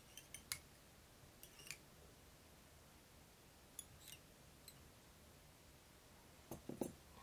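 Near silence broken by a few small clusters of faint, short clicks and ticks: fly-tying tools such as the bobbin and scissors being handled at the vise as the thread is tied off.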